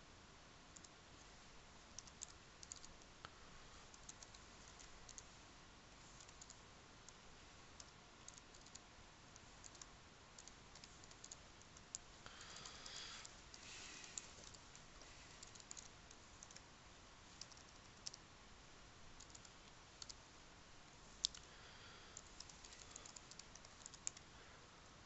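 Faint, irregular keystrokes on a computer keyboard as text is typed, with a denser run of keys about halfway through and one sharper click near the end.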